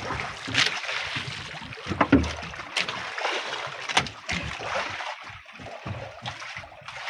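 Wind and water around a small fishing boat, broken by several sharp knocks and clicks against the boat as a freshly caught squid is handled and put into the hold.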